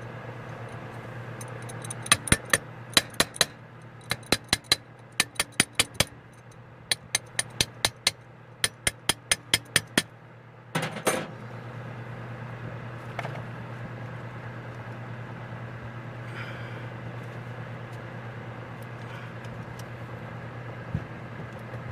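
A wrench tapping on an Edelbrock 1406 four-barrel carburetor, metal on metal, in quick bursts of three to six taps, to jar loose a carburetor stuck to the manifold. About a second after the last taps there is one louder knock, followed by a steady low hum.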